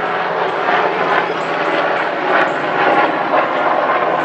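Helicopter passing overhead: loud, steady engine and rotor noise.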